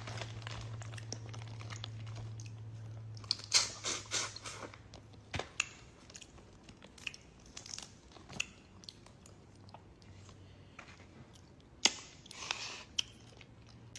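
Close-up chewing and lip-smacking of a person eating seafood from a seafood bag, a string of wet smacks and crunches in bunches. A low steady hum runs under the first five seconds or so and then fades.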